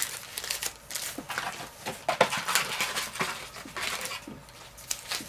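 Foil booster-pack wrappers crinkling and trading cards being handled and flipped through, in irregular small crackles and clicks.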